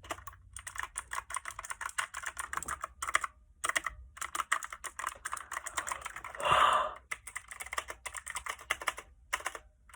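Computer keyboard typed on rapidly: a dense, uneven run of key clicks with short pauses, and a brief louder noise about six and a half seconds in.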